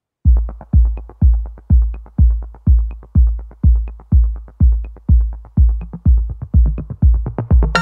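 Electronic background music: a deep kick drum beating steadily about twice a second. It starts a moment in, and fuller synth parts join right at the end.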